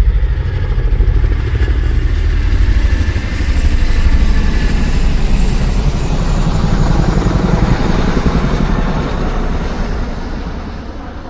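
Loud engine noise of a motor vehicle, running steadily and then fading away over the last couple of seconds.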